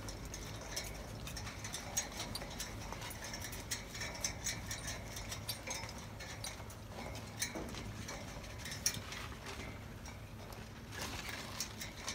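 Irregular clicking and tapping of a dog's claws on a metal grated catwalk, over a low steady rumble.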